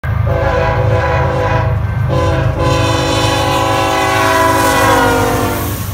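BNSF diesel freight locomotive's air horn sounding a chord, with a short break about two seconds in and then a long held blast whose pitch drops near the end. The low rumble of the diesel engines runs underneath.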